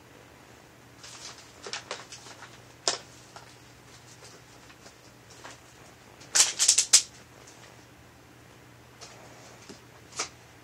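Cat playing in a box: scattered scratches and scuffles against the box, with a short burst of louder scratching about six and a half seconds in and single sharp scrapes near three and ten seconds.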